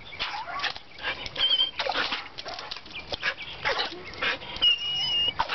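A dog whining: a thin, wavering high whine near the end and a shorter one earlier, among repeated short noisy bursts.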